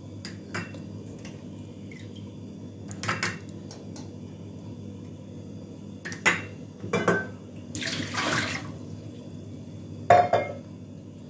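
Hard-boiled eggs being lifted out of a stainless steel pot of water and set into a glass dish, with light clinks and splashes. A short rush of water comes about eight seconds in, and the loudest metallic knock from the pot comes about ten seconds in.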